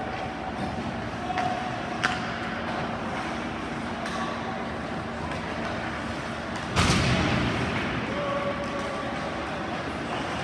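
Ice rink game noise: a steady wash of arena sound with sharp stick-and-puck clicks, and a loud thud about seven seconds in that echoes briefly around the rink.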